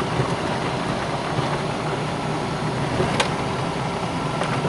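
Off-road 4x4 vehicle running steadily, its engine and driving noise forming a dense, even rumble. A single sharp click comes about three seconds in.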